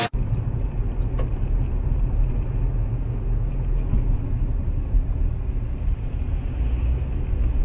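A car driving: steady low road and engine rumble, with a couple of faint ticks.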